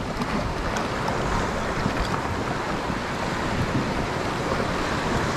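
Steady rushing noise of wind buffeting the microphone, mixed with waves and water.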